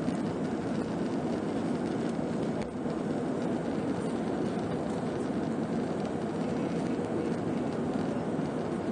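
Airbus A319 jet engines at climb power heard from inside the cabin over the wing, a steady deep rush of engine noise and airflow during the climb-out after takeoff.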